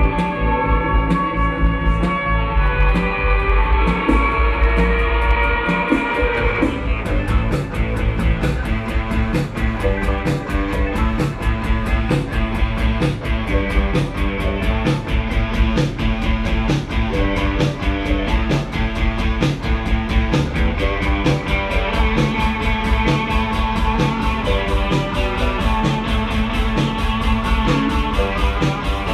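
A live band playing an instrumental passage with no singing: held chords over a heavy bass at first, then about seven seconds in a fast, driving beat takes over.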